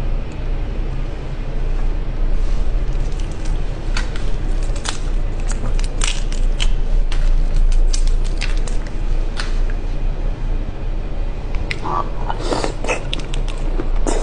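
Shell of a whole red shrimp being peeled by hand close to the microphone: scattered small cracks and crackles, then a quicker cluster of clicks and wet mouth sounds near the end as the meat is eaten. A steady low hum runs underneath.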